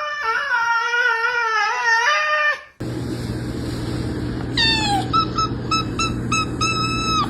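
A domestic cat's long, wavering yowl that breaks off about two and a half seconds in. After a cut comes one short falling cry, then a quick run of about six short, high, squeaky calls.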